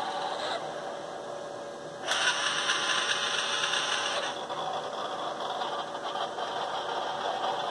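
Sawyer robot arm's joint motors whirring as the arm moves through a motion, with a louder, brighter stretch of whirring from about two seconds in until about four seconds in.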